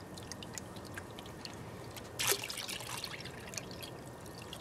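Water trickling and dripping off a plastic gold pan into a tub of muddy water as a gravel sample is panned, with one louder splash a little past two seconds in.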